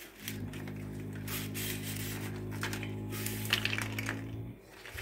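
Brittle dried eggplant shells crackling and rustling as they are handled and pulled apart, over a steady low hum that starts just after the beginning and cuts off abruptly near the end.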